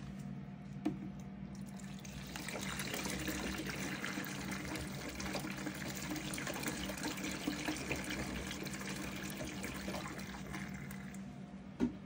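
Front-loading washing machine filling for a wash cycle: water runs into the drum and sloshes through the turning laundry over a steady low machine hum. The water sound comes up about two seconds in and eases near the end.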